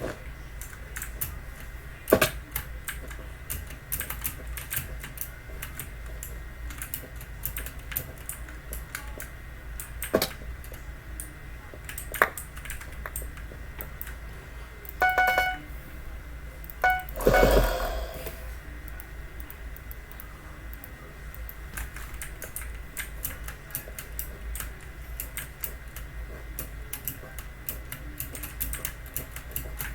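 Typing on a Logitech mechanical keyboard with clicky blue-style switches (GX Blue): a fast, continuous run of sharp key clicks. About halfway through a short pitched tone sounds twice, followed by a louder noisy burst.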